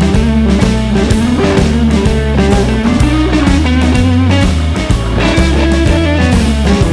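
Background rock music: electric guitar, bass and drum kit with a steady beat.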